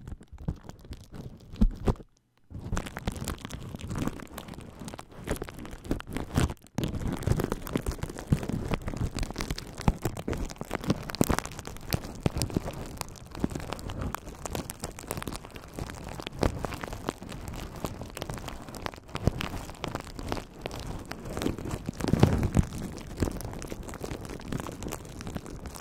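A plastic bubble-wrap pouch being squeezed and crumpled in the hands, crinkling and crackling almost without a break, with one short pause about two seconds in.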